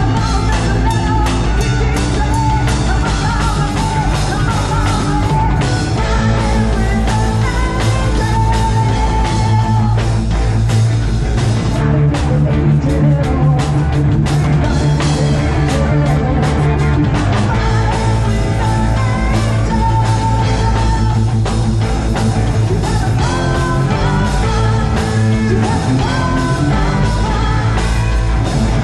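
Live rock band playing loudly: electric guitars, bass and drums, with a singer.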